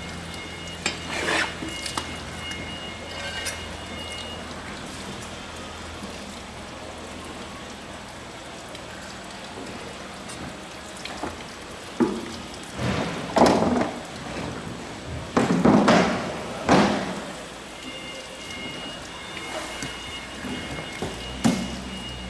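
A long kitchen knife slicing and scraping through a skinned mahi mahi fillet on a plastic cutting board, with a cluster of louder strokes a little past halfway. A steady hiss of background noise runs underneath.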